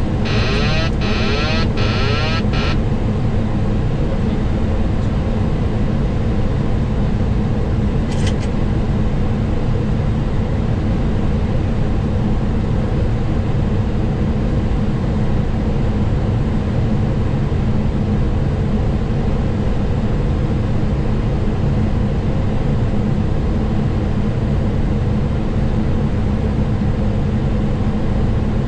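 Steady flight-deck noise of a Boeing 737 on approach: a constant rush of airflow with a low engine hum beneath it. In the first two and a half seconds a thin, high buzzy sound comes and goes, and there is a short click about eight seconds in.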